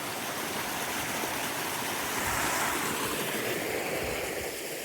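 River water rushing steadily, a continuous even hiss that swells slightly midway through.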